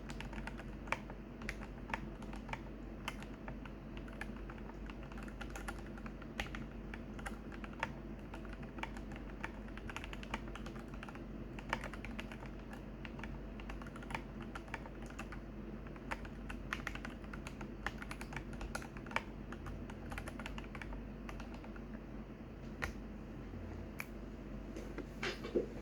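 Glorious GMMK Pro mechanical keyboard, pre-built with its stock switches and keycaps, being typed on: a steady, uneven run of key clacks, with one louder clack near the end. A steady low hum sits underneath.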